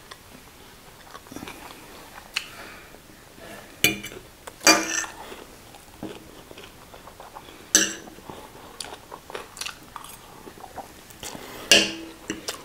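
Eating at close range: chewing of instant noodles, with short clinks and scrapes of metal forks on plates now and then.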